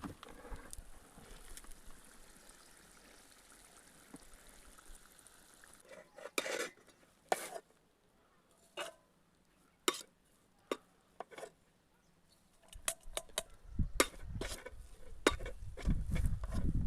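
Scattered clinks and knocks of cooking utensils against pots and dishes, a dozen or so separate strikes, followed near the end by a low rumbling noise.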